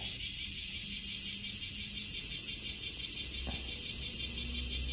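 Insects chirping in a steady, high-pitched pulsing trill, several pulses a second.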